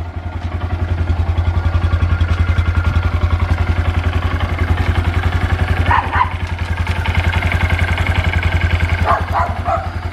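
2022 Honda Grom's small single-cylinder engine idling steadily on freshly changed oil. Dogs bark twice over it, about six seconds in and again near the end.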